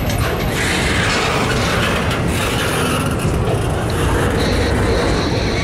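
Union Pacific double-stack intermodal freight train rolling past: a steady rumble and rattle of well-car wheels on the rails, with a faint high squeal coming in near the end.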